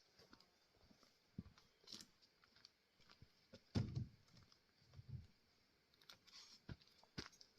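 Scattered light knocks and clicks of split firewood pieces being handled, with one dull, heavier thump about four seconds in and a softer one a second later.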